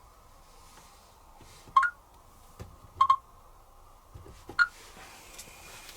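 Asko W6098X washing machine control panel beeping as its buttons are pressed to set the program: three short beeps, each with a click.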